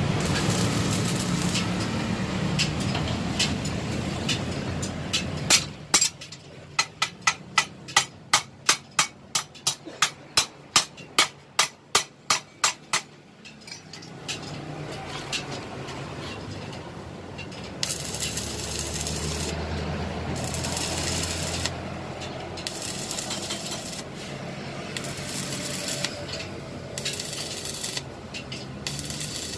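Stick (arc) welding on a steel swing arm, a crackling hiss, stops about six seconds in. About twenty quick metal hammer blows follow, around three a second, then the welding resumes in short bursts of crackle from about eighteen seconds on.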